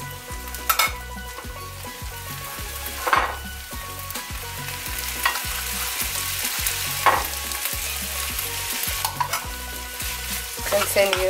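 Rice and vegetables sizzling steadily in a hot frying pan while a spatula scrapes and stirs through them, several short scraping strokes as more cooked rice is tipped in and worked into the mix.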